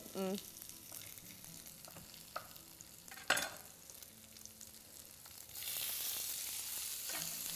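Chopped tomatoes dropped into a hot pan of frying onion, garlic and peppers, setting off a sudden steady sizzle about five and a half seconds in. Before that there is a quieter stretch with a few light knocks and one sharp click about three seconds in.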